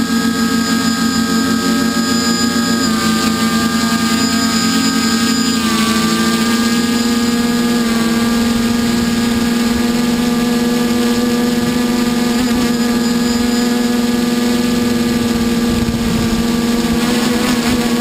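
Multicopter's electric motors and propellers whining steadily, heard up close from on board; the pitch steps slightly a few times as the throttle changes.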